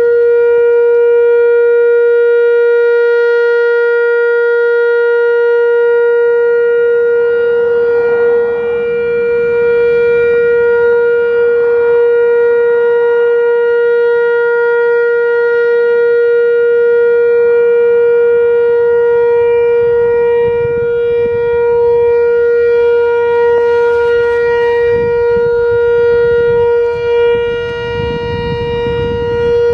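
Whelen WPS-4004 electronic outdoor warning siren sounding its steady Alert tone: one held pitch with many overtones, wavering slightly in loudness. A low rumble joins near the end.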